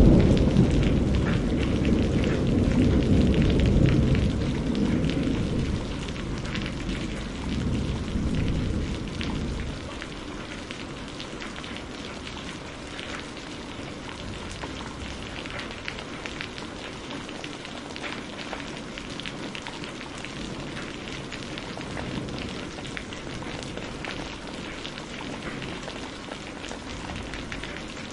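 Steady rain pattering, with a long roll of thunder rumbling loudest in the first few seconds and dying away about a third of the way through. After that the rain's patter goes on alone.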